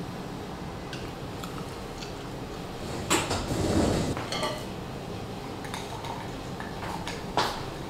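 Hard pots being handled and set down: a few light clinks and knocks, with a louder clattering scrape about three seconds in.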